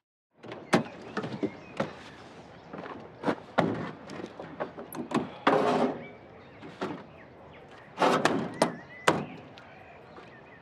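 A series of metal clunks and sharp knocks as the checker-plate aluminium toolbox lid on a ute is handled and shut, with louder clattering a little past halfway and again near the end.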